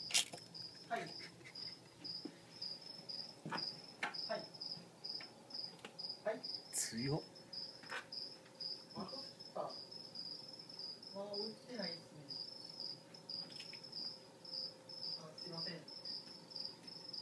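Crickets chirping steadily, a high pulsing trill that runs on without a break, with a few faint clicks and short muffled sounds over it.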